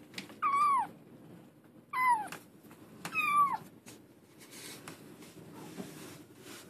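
A kitten mewing three times, each high, thin mew falling in pitch, with faint rustling in the box between the calls.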